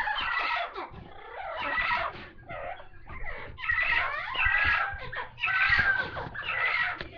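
Amazon parrots calling: a string of loud squawks and chattering calls with short breaks between them.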